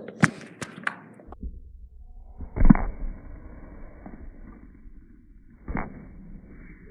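A heavy ball thrown at a small plastic toy hairdryer: a few sharp clicks and knocks in the first second, then a loud dull thud about three seconds in and a second one near the end.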